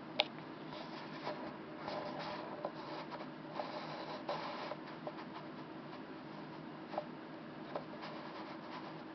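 Faint rubbing, scratching and small clicks, most of them in the first half, with a sharp click just after the start, over a steady low hum. This is handling noise from the handheld camera as it moves.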